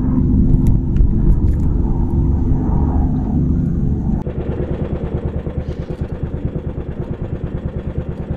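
Small boat engine running: a heavy low rumble for about four seconds, then, after a sudden change, a steady quick chugging.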